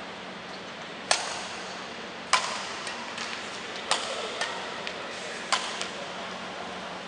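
Badminton rackets striking a shuttlecock in a rally: about five sharp hits, roughly a second apart, with fainter ticks between them.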